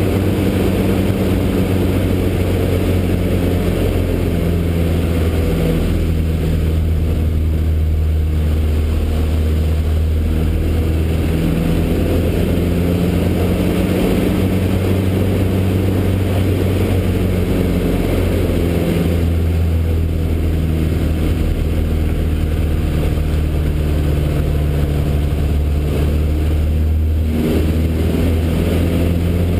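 Inside the cockpit of a 1969 Citabria 7ECA, its 115 hp four-cylinder engine and propeller make a loud, steady drone over rushing airflow. The engine note shifts a little in pitch as power and attitude change through the aerobatic manoeuvres, with a brief dip near the end.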